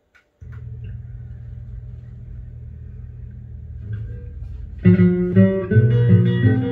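Instrumental introduction to an Argentine vals (waltz), played on plucked guitar-like strings. It starts quietly with a low held sound, and the full accompaniment comes in strongly about five seconds in.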